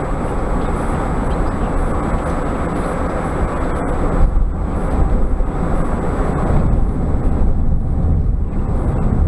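Steady road and engine noise inside a moving car's cabin, strongest in the low end, with an upper hiss that thins out about four seconds in.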